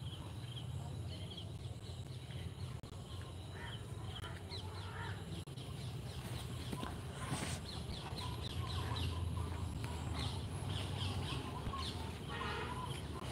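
Birds chirping and calling: many short, high chirps throughout, with a louder call near the end, over a steady low rumble.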